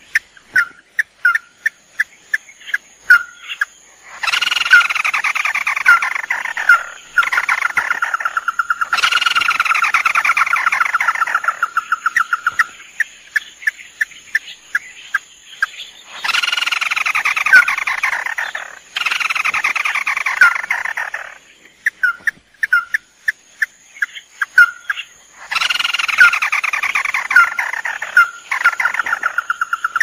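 Tikusan mata merah crakes, male and female, calling. Sharp single notes alternate with several bouts of fast, falling calls that run into a rapid trill on one pitch.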